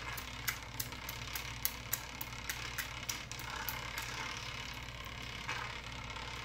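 Light plastic clicks, about three a second for the first few seconds, as a plastic wash bottle is squeezed to rinse powder from a weigh boat into a glass beaker. Soft squirts of water follow later, over a low steady hum.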